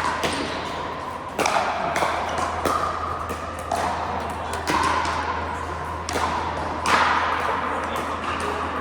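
Pickleball paddles hitting a plastic pickleball in a rally: sharp pops at an uneven pace of about one a second, each with a short ringing tail.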